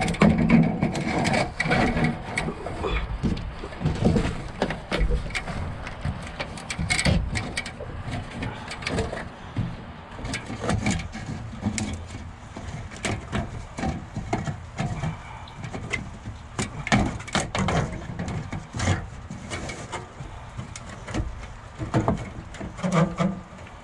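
Irregular knocks, clicks and scraping as an exhaust fan's duct pipe is handled and fitted into place by hand.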